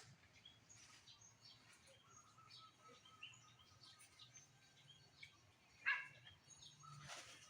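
Quiet background with faint, scattered bird chirps, and one brief louder animal call about six seconds in.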